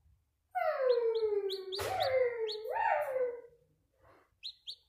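Chick peeping in short, high chirps, about three a second. Over it, a louder long wavering cry slides down and then jumps up in pitch twice, lasting about three seconds, with a sharp click partway through.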